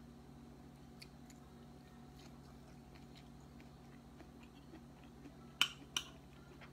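Quiet eating sounds: faint chewing and small clicks over a low steady hum, with two sharp clinks about half a second apart near the end.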